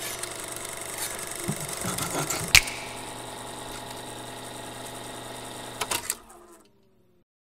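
Film projector running, a steady mechanical whir and rattle, with a sharp click about two and a half seconds in and a few clicks near six seconds as it stops and trails off.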